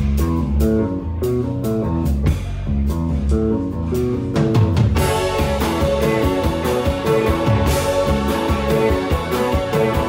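Live band playing an instrumental rock tune, with electric guitar, bass and a drum kit carrying the groove. About halfway through the sound fills out, with cymbals washing over the drums and the band playing denser.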